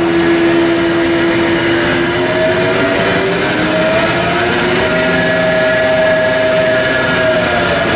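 Okamoto Grind-X PRG6DXNC horizontal-spindle CNC rotary surface grinder running: a steady machine hum with whining tones that drift slowly in pitch, one dropping about two seconds in and a higher one rising soon after.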